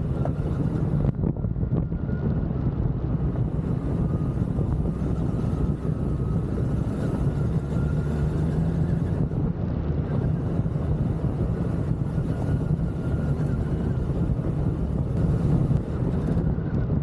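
BMW R1300GS boxer-twin engine running steadily under way, with wind rushing over the microphone.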